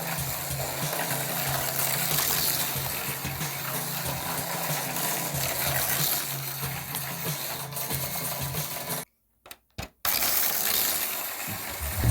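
1:87-scale micro slot cars running around a plastic track, a steady hum under a dense metallic rattle. The sound cuts out almost completely for about a second near the end, then comes back.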